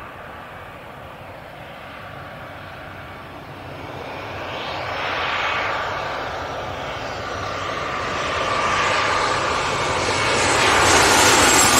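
Air Busan jet airliner on landing approach, its engine noise growing steadily louder as it nears: a steady whine with a rush of jet noise that swells and is loudest near the end.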